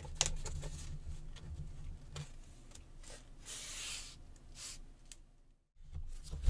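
Paper and cardstock rustling and rubbing as patterned paper pieces are handled and a decorative strip is pressed along an edge, with a few light taps. The sound drops out briefly near the end.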